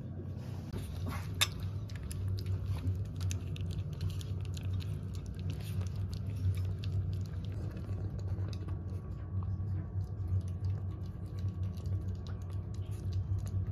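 Chihuahua puppy eating dry kibble from a metal bowl: quick, irregular small crunches and clicks, with a steady low hum underneath.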